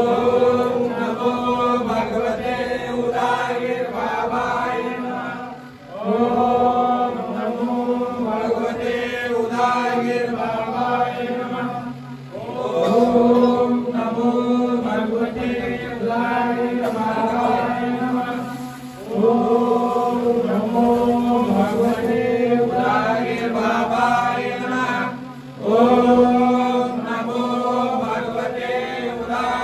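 A man chanting puja mantras into a microphone in long recited phrases of about six seconds each, five in all, each starting loudest and tailing off before a short breath.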